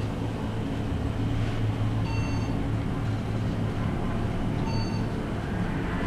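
Steady low hum of an elevator cab, with two short high beeps about two and a half seconds apart.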